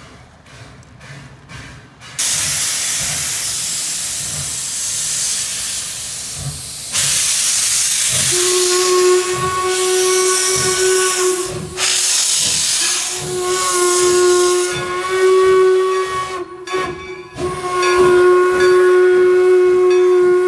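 Northern Central Railway steam locomotive No. 17 hissing loudly as steam vents from its open cylinder cocks, starting about two seconds in. From about eight seconds in, its steam whistle blows several long blasts with short breaks, sounded for the road crossing.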